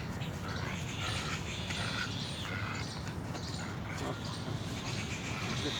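Birds chirping here and there over a steady low rumble.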